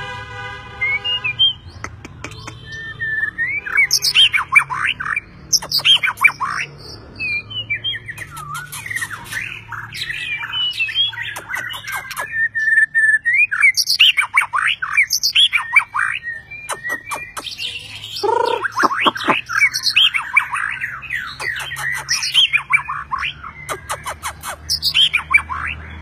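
White-rumped shama (murai batu) singing a long, varied song of rapid whistled phrases, with sharp sweeping notes and clear held whistles broken by short pauses.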